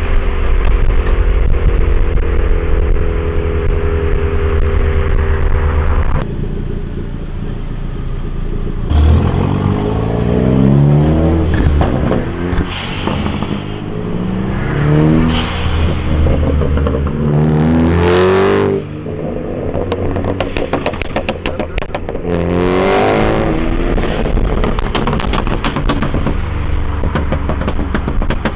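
Ford Focus ST's turbocharged engine, running a stratified pop-and-crackle tune, runs steadily and then pulls hard several times, revs climbing in repeated rising sweeps. About two-thirds of the way through comes a rapid string of loud exhaust pops and crackles on lift-off.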